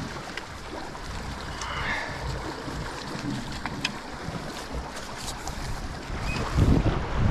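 Wind buffeting the microphone over sea washing against the rocks, with a few light clicks; a stronger gust of wind rumble near the end.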